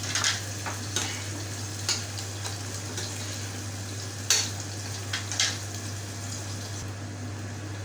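Onion sizzling as it fries in oil in a pot. A spoon scrapes and clicks against the pot about six times as the onion is stirred.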